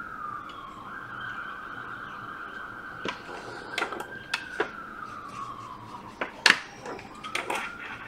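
Sharp clicks and knocks of hands handling tools and a charging cable on a workbench, scattered through the second half, the loudest about six and a half seconds in. Under them runs a continuous high whistle-like tone that slowly falls in pitch and rises again.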